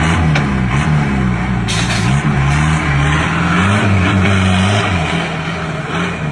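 Off-road Jeep's engine revving hard as it accelerates away through mud, the revs rising and falling over and over, with a burst of hiss about two seconds in.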